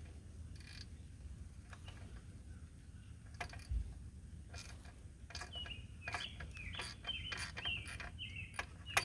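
Faint, irregular clicks of hand tools on a motorcycle's exhaust bolts, with a quicker run of ratchet-like chirping clicks from about five to nine seconds in.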